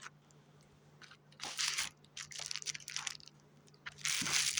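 Bubble wrap crinkling and crunching as it is unwrapped by hand, in several short bursts with the longest near the end.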